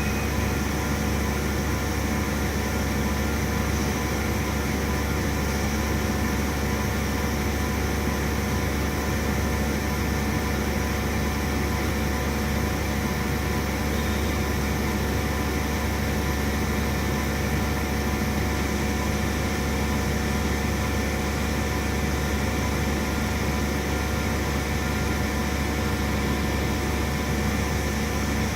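CNC milling machine running steadily: a constant machine hum with several steady whining tones over an even noise.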